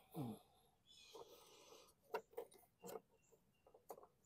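Faint handling sounds: scattered light clicks and knocks with soft rustling, as hands work a drive belt onto a lawn mower's transmission pulley.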